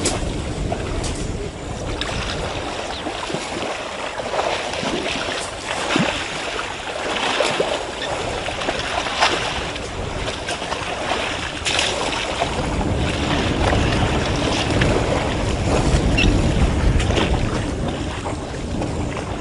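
African elephants wading and splashing in a waterhole, with scattered sloshes of water. Wind buffets the microphone with a low rumble, steady from about two thirds of the way in.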